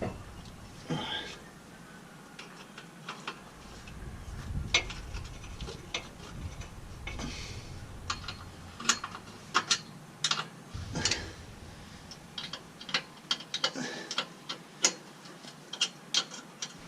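Hand ratchet clicking in short runs, mixed with metal clinks and knocks, while the bolts on the exhaust pipe flanges are worked.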